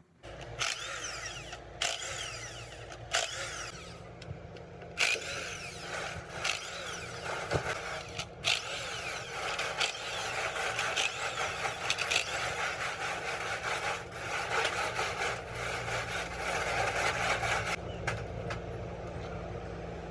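A power tool working in spells, with several sharp knocks, easing off near the end.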